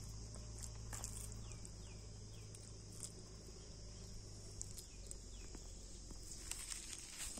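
Steady high insect chirring, with two short runs of quick falling bird chirps, about three a second, and a few faint soft clicks.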